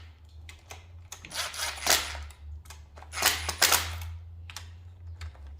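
Impact wrench on its low setting fired in several short rattling bursts, running the upper oil pan bolts down until they bottom out, over a steady low hum.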